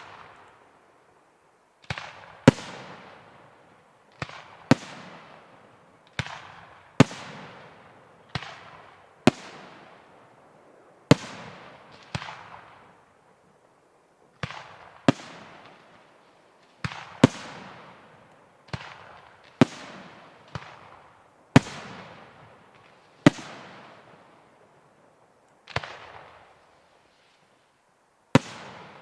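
Fireworks display: about twenty sharp firework bangs, roughly one a second and sometimes two close together, each trailing off over about a second.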